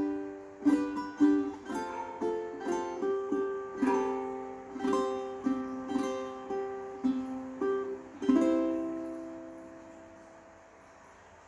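Solo aNueNue LOUT tenor ukulele played as an instrumental, plucked notes and chords in a steady melody. About eight seconds in, it ends on a final chord that rings out and fades away over about two seconds.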